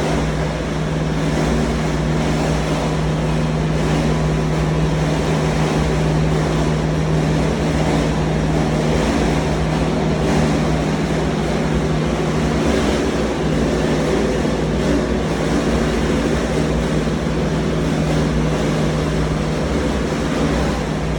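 A motor running steadily: a constant low hum over an even rushing noise, with no change in pitch.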